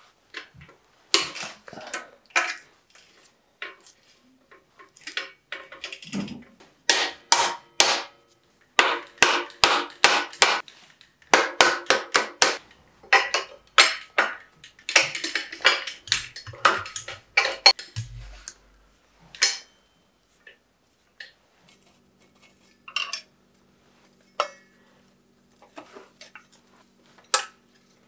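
Metal bicycle parts and hand tools clicking and clinking as components are taken off a 1991 Ritchey Ultra mountain bike: sharp clicks and knocks in quick runs through the middle, thinning out to scattered taps, with a faint low hum coming in later.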